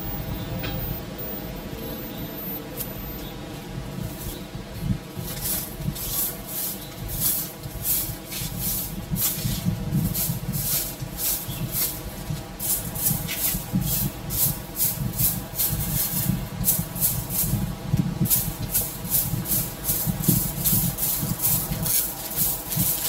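Broom sweeping a concrete walkway: quick, repeated scratchy bristle strokes that start a few seconds in and go on steadily.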